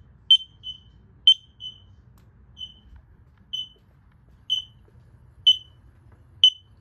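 X-Sense interconnected smoke alarms sounding in test mode: short high-pitched beeps about once a second. For the first couple of seconds a fainter beep from a second linked alarm follows just after each one.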